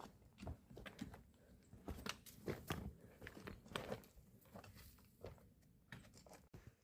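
Faint, irregular crunching footsteps of a hiker walking downhill on a forest trail.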